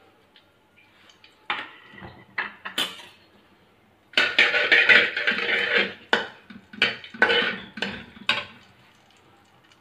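Metal slotted spatula scraping and knocking against an aluminium kadhai, stirring whole spices in hot oil: a few light clicks, a long scrape about four seconds in, then about five sharp knocks.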